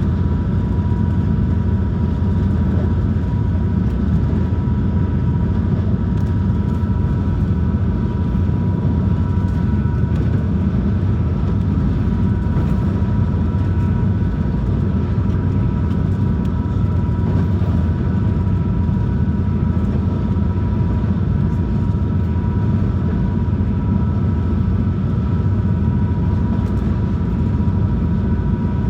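Steady low drone of a high-speed passenger boat's engines heard inside the cabin while underway, with a thin steady whine on top.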